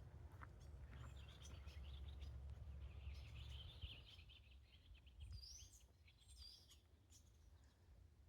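Faint songbird calls: a fast high twittering for a few seconds, then two short high whistles that fall in pitch, over a low rumble of wind that fades about halfway through, with a few faint clicks.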